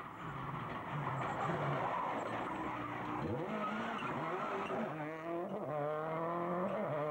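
Subaru Impreza WRC rally car's turbocharged flat-four passing at speed on a tarmac stage. Its engine note drops as it goes by about three seconds in, then it pulls away with the revs rising in steps through gear changes.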